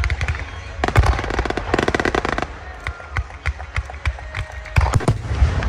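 Fireworks going off: a string of sharp bangs with a dense burst of rapid crackling about a second in, then another cluster of heavy bangs near the end.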